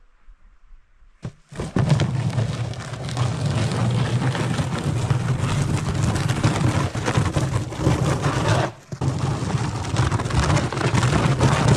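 Vertical log splitter's motor and hydraulic pump starting about a second in and running steadily under load as it presses a wet sawdust-and-cardboard mix into a briquette mould, with a short drop about nine seconds in before it picks up again.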